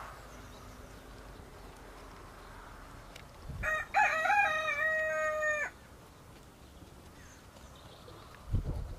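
A rooster crowing once, a few seconds in: a call of about two seconds with a short rising start and a long level note.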